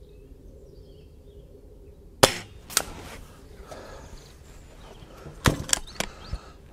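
Diana 240 spring-piston air rifle firing once: a sharp crack about two seconds in, followed by a smaller knock about half a second later. Near the end the barrel is broken open and cocked, giving a quick series of metallic clicks.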